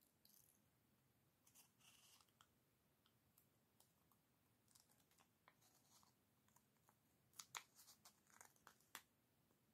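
Scissors snipping through plastic 35mm film leader, very faint: scattered small cuts, then a handful of sharper snips in the last couple of seconds.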